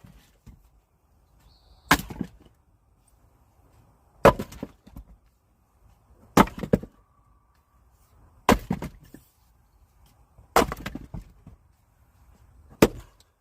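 Firewood being split by hand: six sharp chopping strikes, one about every two seconds, each followed by a short clatter of split pieces.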